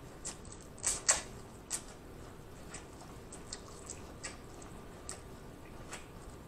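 Close-miked eating sounds: wet mouth smacks and chewing clicks, the loudest few about a second in, then softer scattered smacks.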